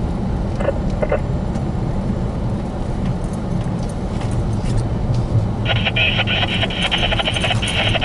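Steady low rumble of a car driving slowly over a snow-covered road, heard from inside the cabin. About six seconds in, a harsh high hiss joins it and keeps going.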